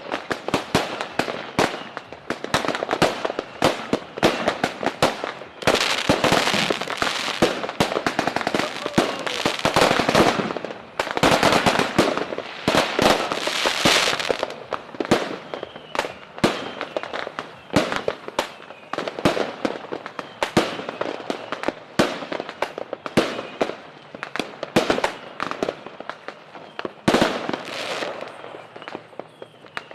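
Aerial fireworks going off in a rapid, dense barrage of bangs and crackling, heaviest from about six to fourteen seconds in, then thinning to scattered pops with one loud bang near the end.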